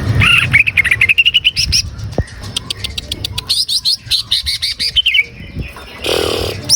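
Greater green leafbird (cucak ijo) singing: loud, rapid runs of short rising chirps that break off briefly and start again.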